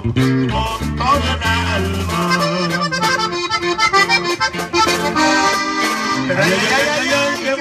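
Live norteño band playing: accordion carrying the melody over a strummed guitar and a bass line, which drops back about two seconds in.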